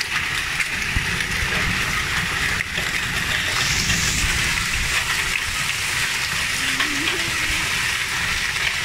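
Heavy rain pouring down in a steady hiss, falling hard on the street, lawn and tree leaves.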